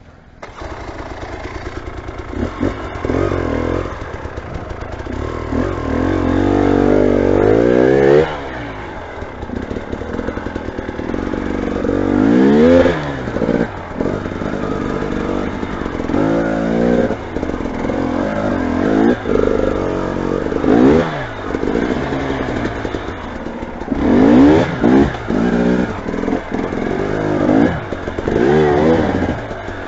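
Motorcycle engine picking up about half a second in and then revved repeatedly, its pitch rising and falling again and again as the throttle is opened and closed.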